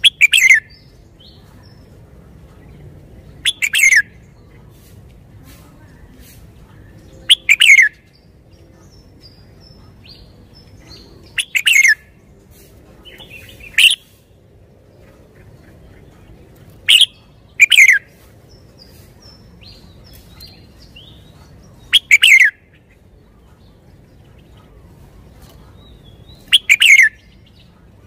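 Red-whiskered bulbul singing short, loud phrases, about nine of them, one every three to four seconds, each a quick falling whistle. Faint chirps come in between.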